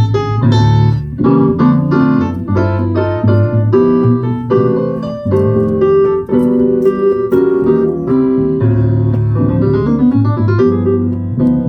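Jazz piano playing live, a stream of quick single notes and chords over held low notes.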